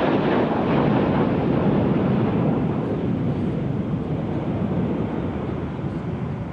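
Jet noise from a formation of BAE Hawk T1 jets flying past, a steady rush from their Adour turbofans that slowly fades away.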